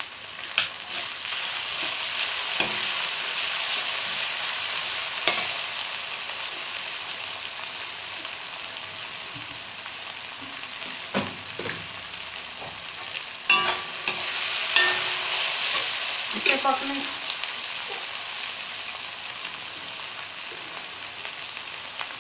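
Chopped onions, potatoes, ginger and green chillies frying in hot oil in a metal kadhai, a steady sizzle. A perforated metal slotted spoon stirs through them, knocking and scraping against the pan several times.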